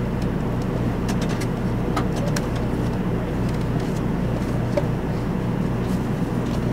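Inside a Series 500 Shinkansen car as the train starts to roll slowly away from the platform: a steady low drone from the train's running equipment, with a few faint scattered clicks and knocks.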